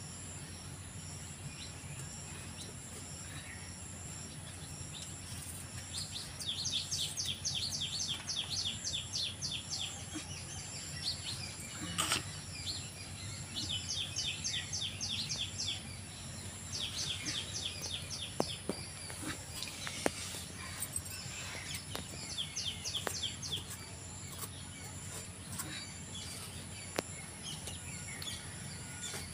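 Birds calling in several bouts of fast, evenly repeated high chirps, over a steady low hum, with a few sharp knocks now and then.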